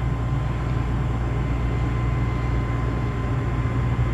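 Twin piston engines of a Beechcraft Baron G58 on final approach, a steady low drone.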